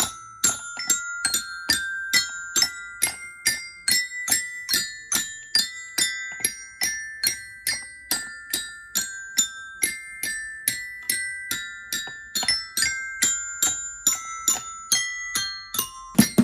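Xylophone played one note at a time with a mallet at a steady pace of a little over two strikes a second, the high, ringing notes wandering up and down the scale. Right at the end a louder knock comes with a quick flurry of notes.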